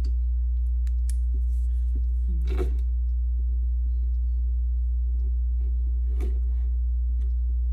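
A steady low electrical hum with faint desk-handling sounds over it: a pen is picked up with a few light clicks and knocks, the clearest about two and a half seconds in, then it writes softly on a paper tracker sheet.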